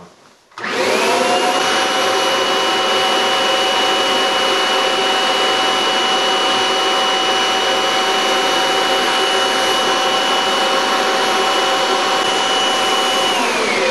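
Vacuum cleaner switched on about half a second in, its motor spinning up and then running steadily with a rush of air. Near the end it is switched off and its pitch falls as it winds down.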